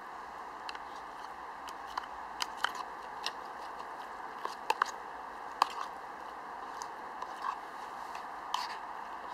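A spoon scraping and knocking against a steel camping mug as oat porridge mix is stirred: a dozen or so irregular clicks and scrapes, loudest around the middle, over a steady background rush.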